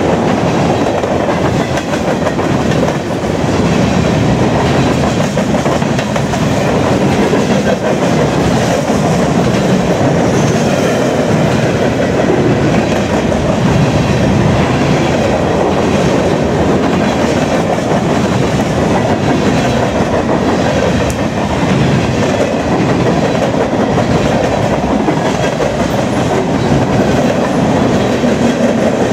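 Freight train cars rolling past on the nearest track, a loud steady rumble of steel wheels on rail with repeated clacking over the rail joints.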